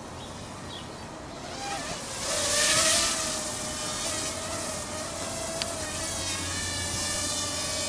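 Cobra WiFi FPV mini quadcopter's motors and propellers buzzing with a steady high whine. The sound swells about two seconds in as the drone comes close, then holds steady while it hovers.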